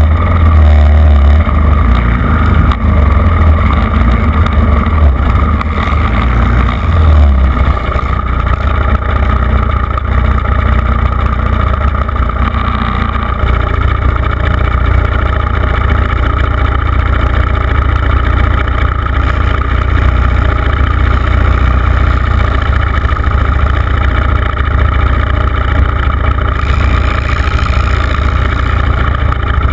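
Quad bike (ATV) engine running loud and close, pulling harder for the first several seconds, then settling into a steady run.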